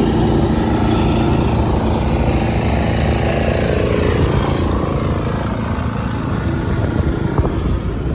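Road traffic: a motor vehicle engine running close by over a steady wash of traffic noise. The engine note drops in pitch and fades about halfway through.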